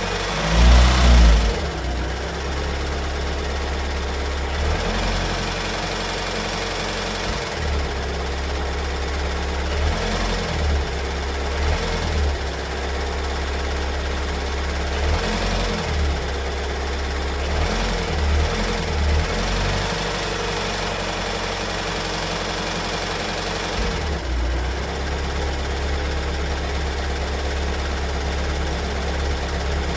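Kia Sorento 2.2 diesel engine running at idle with a knocking noise, which the owner takes for a fault the car never had before its service. It swells louder for a moment about a second in.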